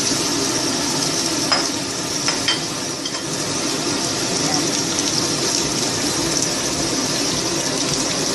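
Cubed pumpkin sizzling steadily in a frying pan, with a few light clicks about two seconds in.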